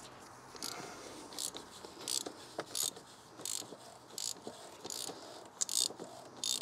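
Hand ratchet with a 32 mm socket clicking in short bursts, about one a second, as it undoes the oil filter housing cap.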